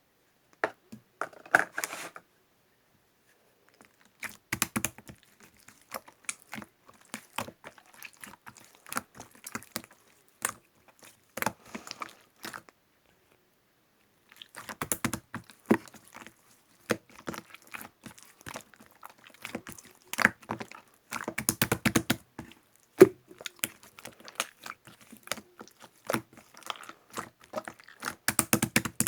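Slime being squeezed and played with by hand, giving bursts of crackling, clicking pops with short pauses between.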